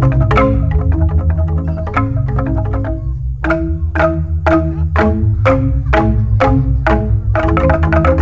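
Jegog, the Balinese bamboo gamelan: mallets striking tuned bamboo tubes in a rapid interlocking pattern over a deep, sustained bass. About three seconds in, the playing thins to slow, spaced strokes, about two a second, and the fast playing resumes near the end.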